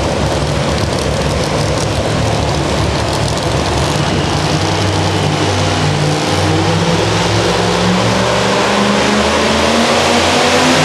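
Supercharged engine of a super modified pulling truck idling at the line, steady and loud. It grows a little louder near the end.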